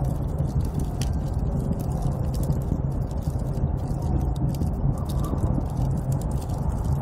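Snowstorm wind blowing steadily with a deep rumble, with many small crackles and ticks scattered over it.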